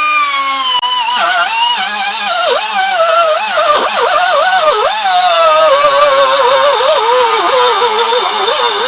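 Power tool with an abrasive cutoff wheel cutting metal: the motor whines steadily, its pitch dipping and recovering again and again as the wheel is pressed into the metal, over a gritty hiss of grinding.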